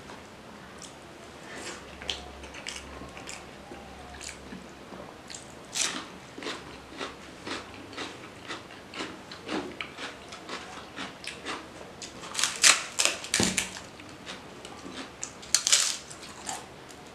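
Close-miked eating: fingers working rice and fish curry on a banana leaf with soft wet clicks, then loud crunching bites of a crisp papad in two bursts in the second half.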